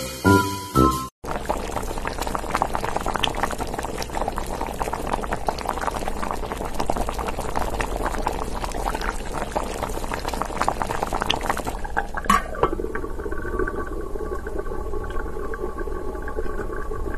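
Liquid bubbling and crackling densely and evenly, like water at the boil. About twelve seconds in there is a click, then a steady hum joins the bubbling.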